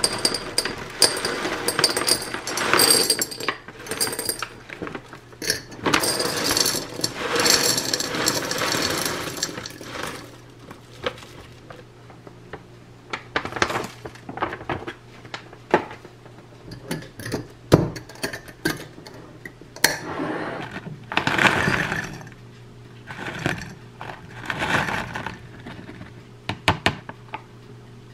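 Kitchen work while making bread: a busy run of clicks, taps and short scraping or rustling bursts from utensils and bowls, busiest in the first third, over a faint steady hum.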